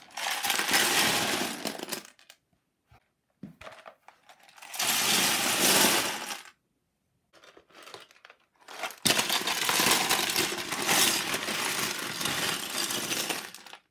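Loose LEGO bricks poured from boxes into a clear plastic storage tub, clattering against the plastic and each other. There are three pours, starting near the beginning, about five seconds in and about nine seconds in, the last one the longest, with a few scattered clicks between them.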